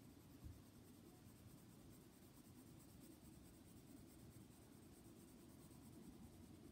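Faint scratching of a pencil shading in a drawing on sketchbook paper, with a soft bump about half a second in.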